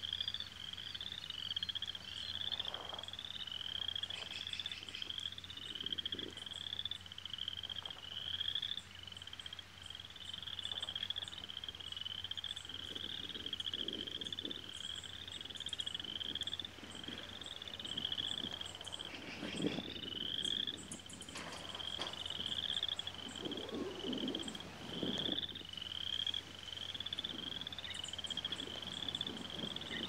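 Frog chorus: a steady run of short, high, slightly rising chirps, about two a second, that never lets up, with faint high ticking calls above it.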